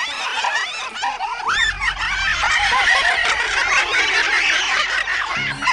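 A chorus of many cartoon voices laughing at once, high-pitched and overlapping: the troublesome trucks' laughter.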